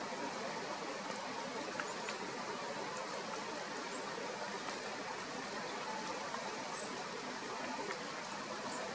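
Steady, even rushing noise of outdoor ambience, with a few faint ticks.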